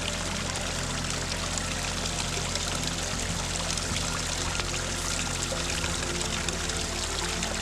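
Background music with sustained low tones that change chord about two thirds of the way through, over a steady rushing, water-like hiss.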